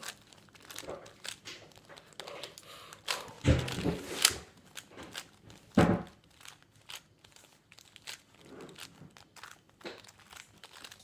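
Speed cube being turned by hand: an irregular run of small plastic clicks as the layers are twisted, with two heavier thumps about three and a half and six seconds in.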